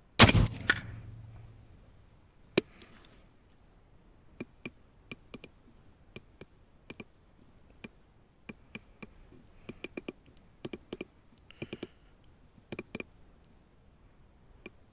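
A single rifle shot with a decay lasting over a second. A sharp tap follows about two and a half seconds later, then a run of light, irregular clicks.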